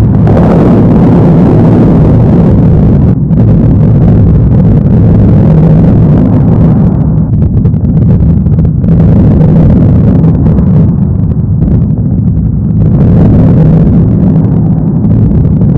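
Designed low rumble, a recording of duct tape being pulled drastically time-stretched into a thunder-like layer. It is loud and dense, and swells and eases a few times.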